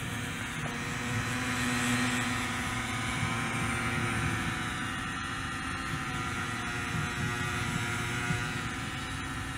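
Eachine E58 mini quadcopter hovering close by, its propellers buzzing with a steady whine made of many pitches that waver slightly as it holds position; a little louder about two seconds in.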